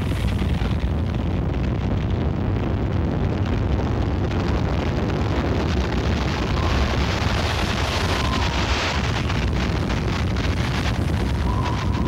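Tornado winds blowing hard past a highway overpass, a steady, deep rush of wind buffeting the microphone.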